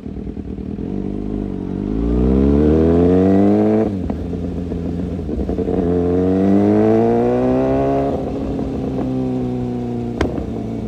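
Kawasaki ZX-6R's inline-four engine accelerating: the note climbs steadily in pitch and drops abruptly about four seconds in, climbs again, then eases back to a steadier lower note. A sharp click comes near the end.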